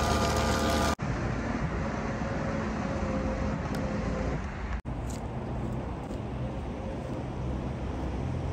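Electric ATV winch motor running with a steady whine for about the first second, cut off sharply. After that, steady outdoor background rumble and hiss.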